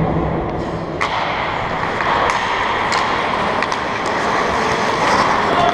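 Ice hockey play in an indoor rink: a steady noise of skates on the ice and arena hubbub, with several sharp clacks of sticks hitting the puck.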